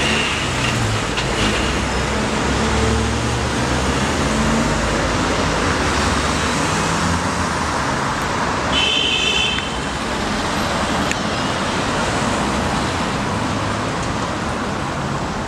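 Steady city street traffic: cars and other motor vehicles running past on the road, with a brief high-pitched tone about nine seconds in.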